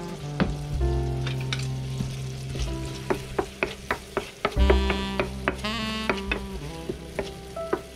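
Food sizzling in a frying pan on a gas stove while a wooden spatula stirs it, knocking against the pan in a run of sharp taps from about three seconds in. Background music plays throughout.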